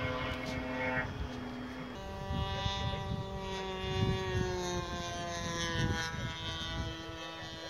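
Small propeller aircraft flying overhead, its engine giving a steady drone whose pitch slowly falls as it passes, with wind rumbling on the microphone.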